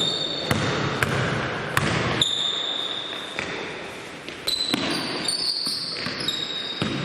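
A basketball bouncing on an indoor court floor, in irregular knocks with a lull around the middle, mixed with short high squeaks of sneakers sliding on the floor.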